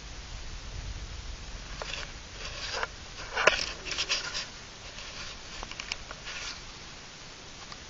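Steady hiss with a run of short rustles and sharp clicks in the middle, like something being handled close to the microphone.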